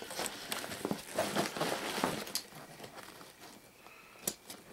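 Rustling and handling of a Maxpedition Falcon II nylon backpack, with scattered small clicks, easing off after about two seconds and ending with one sharp click.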